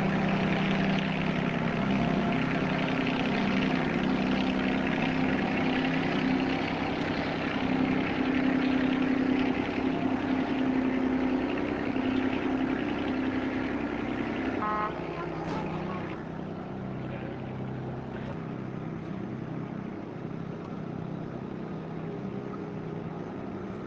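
Boat engine running with a steady low drone. About fifteen seconds in it drops noticeably quieter, with a short high tone at that moment, and keeps running.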